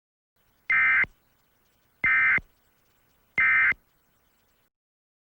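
Emergency Alert System end-of-message signal: three identical short bursts of buzzy, warbling SAME digital data, about 1.3 seconds apart, marking the end of the alert.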